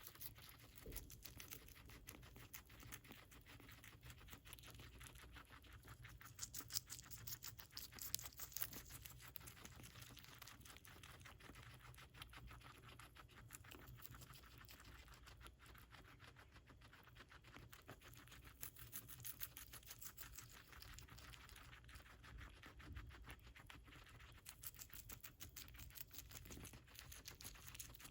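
Guinea pig chewing lettuce: a faint, rapid run of small crunching clicks, with a few louder bites scattered through.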